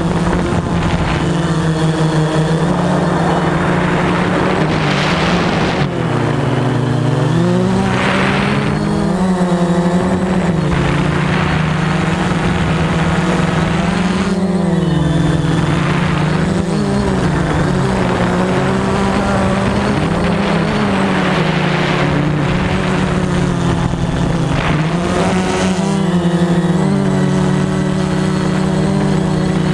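Veho Muvi Q1 quadcopter drone in flight: its motors and propellers make a loud, steady whine whose pitch keeps sliding up and down as it manoeuvres.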